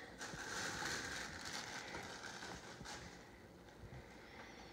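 Soft rustling and crinkling of plastic packaging being handled, dying down after about three seconds.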